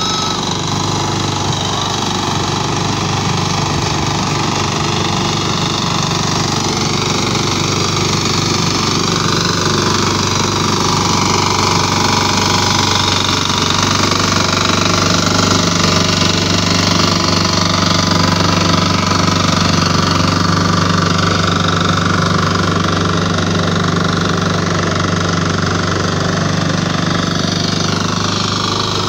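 Two-wheel hand tractor's engine running steadily at an even pitch as the machine works through a flooded rice paddy.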